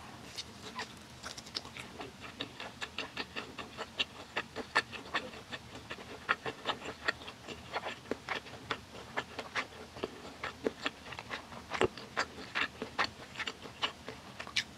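Close-up chewing of egg-battered pan-fried beef slices (yukjeon): a steady run of quick, irregular mouth clicks and smacks, several a second.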